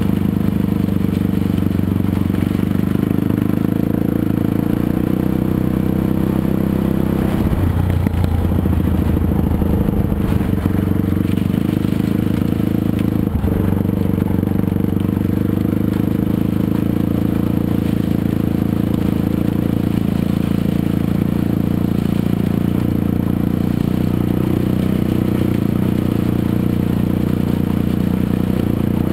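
Dirt bike engine running steadily while riding over gravel, its note shifting about eight seconds in.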